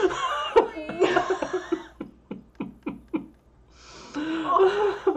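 A man and a woman laughing hard: a long burst of laughter, then short gasping laugh pulses that die away, and a second burst of laughter near the end.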